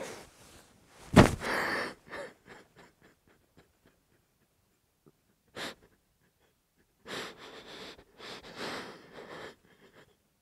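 A person in bed breathing hard and gasping. A loud, sudden sound comes about a second in, then one short breath, and two longer ones near the end.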